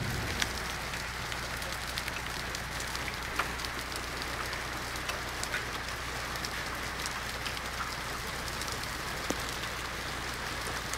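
Heavy rain pouring down steadily, with frequent sharp ticks of individual impacts striking hard surfaces.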